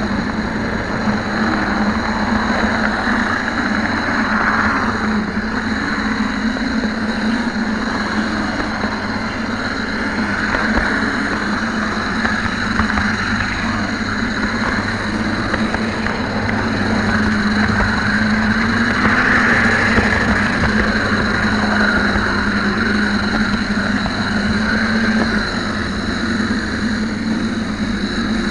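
HO scale model train running along its track, heard up close from a camera riding on the train: a steady mechanical hum with a slightly wavering pitch.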